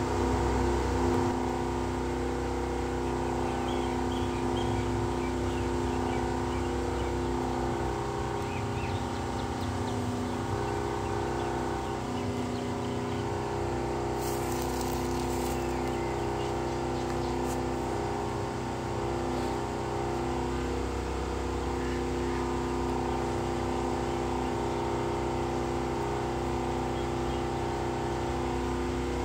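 Diesel locomotive engine running at a steady speed: a constant drone with several held notes that never rise or fall.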